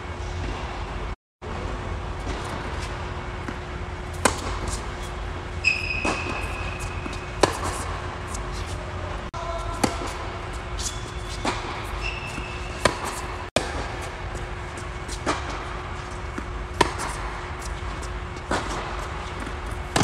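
Tennis rally on an indoor hard court: sharp pops of the ball coming off racket strings and bouncing on the court, one every second or two. A few brief high squeaks come in between, over a steady low hum.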